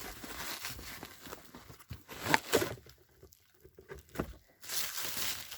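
Packaging being pulled and torn open by hand: rustling and tearing with a few sharp handling knocks, pausing for about two seconds in the middle before the rustling starts again.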